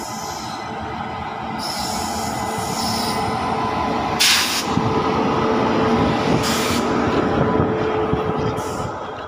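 Indian Railways WAP-7 electric locomotive and its LHB coaches rolling past close by: a rumble of wheels on rail that swells as the train draws level, with a short loud hiss about four seconds in as the locomotive passes. Then the coaches run past with a steady tone over the rumble, and the sound eases off near the end.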